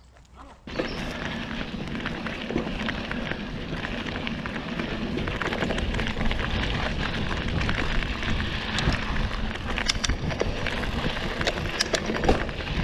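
Aluminium hardtail Specialized Rockhopper mountain bike ridden fast over a dirt trail: a dense crackling, rushing noise of knobby tyres on dirt and leaves, with scattered sharp knocks and rattles from bumps. It begins abruptly under a second in, and the loudest knocks come near the end.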